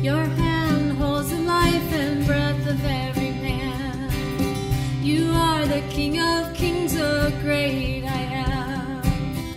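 Live song: a woman singing with acoustic guitar, backed by electric bass and drums.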